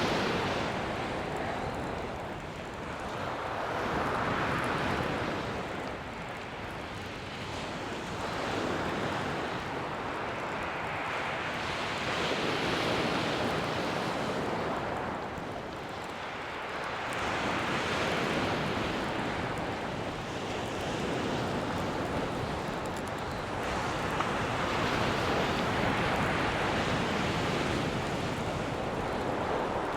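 Sea waves breaking and washing back over a shingle beach, the surf swelling and easing every three to five seconds.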